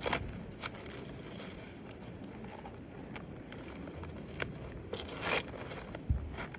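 Scattered scrapes, taps and rustles of roof shingles being handled and worked on a roof, with a few sharper clicks near the start and in the second half.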